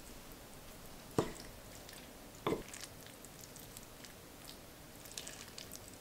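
A metal spoon scooping and mixing mapo tofu and rice on a plate: two sharp knocks of the spoon against the plate, about a second apart, then a few faint light clinks near the end, with soft squishing of the saucy food.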